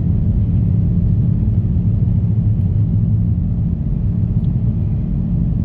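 Steady low rumble of a car's engine and tyres on a snow-covered highway, heard from inside the cabin.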